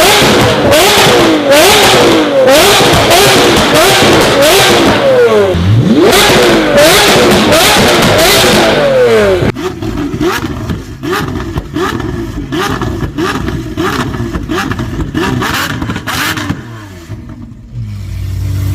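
Lamborghini Aventador's V12 being revved over and over, its pitch climbing and falling about once a second, with sharp exhaust cracks and pops between the revs. About halfway through it turns quieter, and near the end it settles into a steady low idle.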